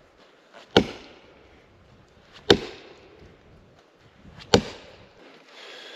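Axe chopping into the trunk of a dead tree, three sharp strikes about two seconds apart, cutting a notch to fell it.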